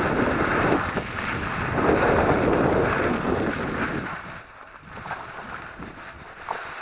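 Wind rushing over the microphone and tyre noise from an electric mountain bike riding over sand and loose rock. It gets much quieter about four seconds in.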